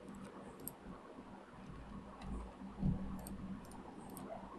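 Faint, scattered clicks of a computer keyboard and mouse, about half a dozen single clicks, with a soft low thump about three seconds in.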